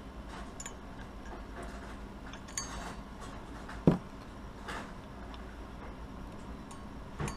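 Handling noise from an opened hard drive: light clicks and taps of its metal parts, with one sharp knock about four seconds in as the drive casing is turned over and set down, and a softer knock near the end.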